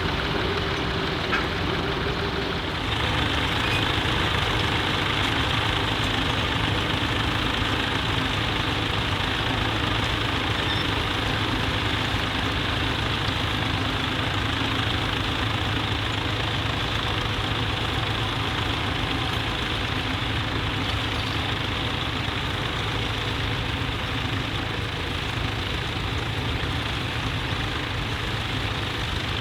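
Vintage farm tractor engine running steadily, a little louder from about three seconds in.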